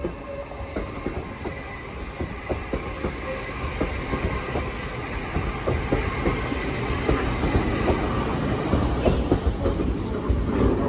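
Lumo Class 803 electric train running past along the platform: a steady rumble with irregular clacks of the wheels over the rail joints, growing louder toward the end.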